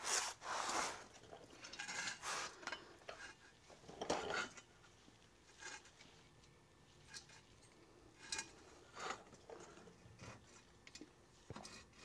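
Faint, irregular clinks and scrapes of metal as a homemade hydraulic crimper, built from a jack and scrap steel, is handled and set in place on a battery cable lug.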